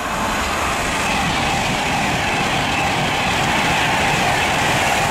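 Avanti West Coast Class 390 Pendolino electric train passing through at speed: a loud, steady rush of wheels on rail and air. It swells at the start and begins to fade near the end.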